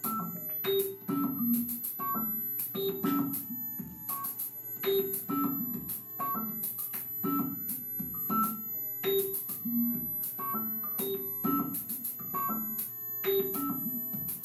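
Electronic music with a steady clicking beat and a short electric-piano-like phrase repeating about every two seconds.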